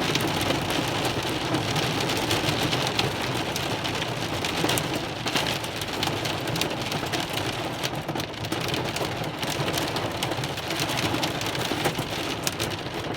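Heavy downpour with hail: a steady roar of rain with many sharp ticks of hailstones striking among it.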